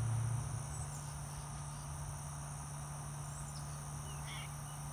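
Steady high-pitched chirring of insects in an outdoor chorus over a low steady hum, with a low rumble in the first half second and a brief faint chirp about four seconds in.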